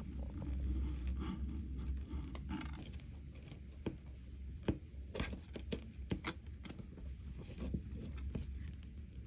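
Light clicks and scrapes of silver-plated copper wire being bent around the jaw of a pair of step pliers, most of them about halfway through, over a steady low hum.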